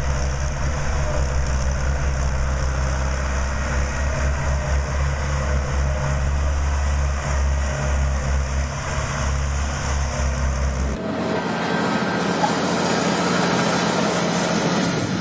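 Heavy machinery engine running steadily with a low hum. About eleven seconds in it cuts abruptly to a different, noisier machine sound without the low hum.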